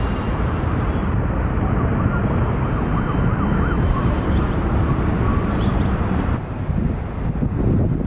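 Steady, loud rumble of jet airliner engines, with a faint wavering whine over it; the higher part of the noise falls away about six and a half seconds in.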